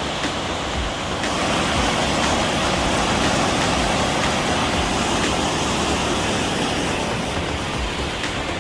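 Athabasca Falls: a loud, steady rush of heavily falling river water, with no break or change.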